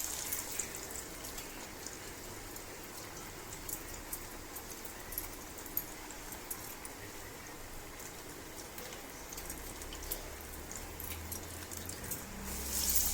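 Banana-stem vadas deep-frying in hot oil in a kadai: an even sizzle with many small crackles and pops.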